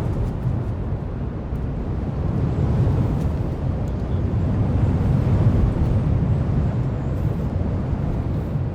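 Heavy surf from giant ocean waves breaking: a continuous deep rumble that swells louder around three seconds in and again around five seconds in.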